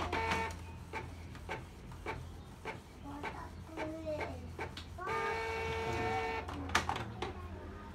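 Canon G2010 inkjet printer printing a colour test page after a head cleaning for ink that would not flow: a run of short clicks and whirs from the print mechanism, then a steady motor whine for about a second and a half as the sheet feeds out.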